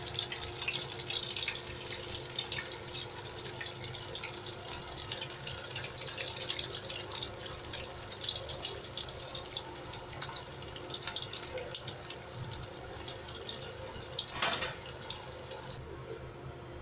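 Battered onion rings stuffed with mozzarella deep-frying in hot oil: a steady sizzle full of fine crackling that slowly thins and quietens, with a louder crackle about fourteen seconds in.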